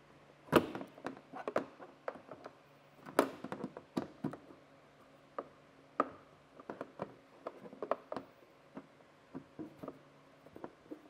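Plastic push-pin retainers being pried out of a bumper's lower edge with a trim panel tool: a series of irregular sharp clicks and snaps, the loudest about half a second in.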